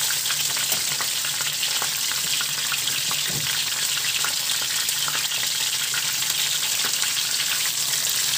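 Fresh sausages frying in oil in a pan, a steady sizzling hiss with scattered crackles and pops.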